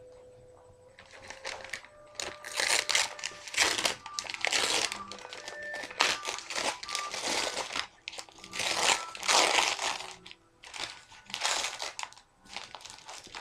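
A takeaway lamb yiros's wrapper being crinkled and pulled open by hand: a long run of irregular crackling rustles that starts about a second in, with brief pauses between handfuls.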